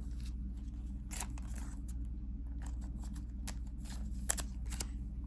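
Lorcana trading cards and pack wrappers being handled: a few sharp, irregularly spaced clicks and rustles over a steady low hum.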